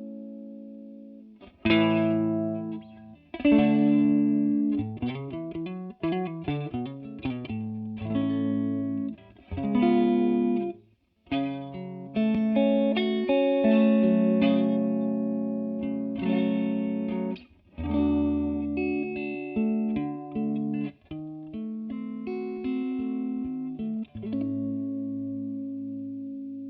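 Clean electric guitar played through a TC Electronic Corona Mini chorus pedal: picked chords and single notes ringing with a chorus shimmer, with a few short breaks between phrases and a last chord left to ring out.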